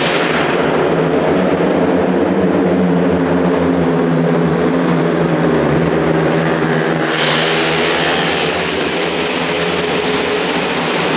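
Three speedway bikes racing around a shale track, their single-cylinder 500 cc methanol-fuelled engines running loud and hard. About seven seconds in the sound turns suddenly brighter as the bikes come nearer.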